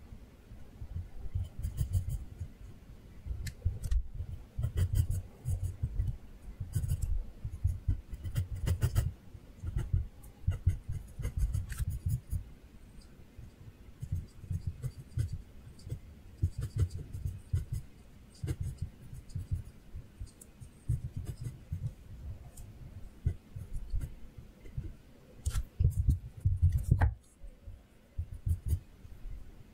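Pencil drawing on paper: short scratching strokes in quick bursts with brief pauses. One sharp tick near the end.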